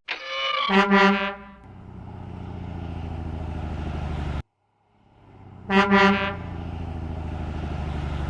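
Garbage truck sound effects: a truck horn honks, then an engine runs steadily. The sound cuts off a little over four seconds in, and after half a second of silence the engine fades back in and the horn and engine run again.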